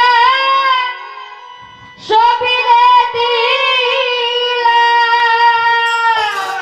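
A young female singer sings a Bengali song into a microphone. She holds long notes: one fades about a second in, and a long, wavering note runs from about two seconds in until near the end.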